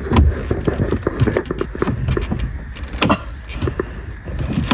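A car's interior trim panel being pried and tugged at by hand, its clips knocking and clicking irregularly, with a heavy thump at the start and a sharp click about three seconds in. The panel is stubborn and won't come out.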